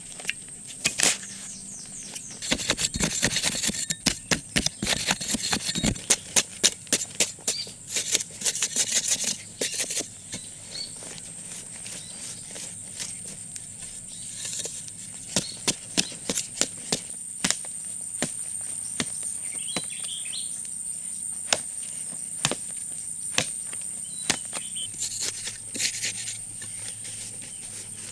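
Repeated chops and scrapes of a digging tool's blade cutting into dry earth, in quick runs of strikes for the first ten seconds and more spaced out after, over a steady high insect drone.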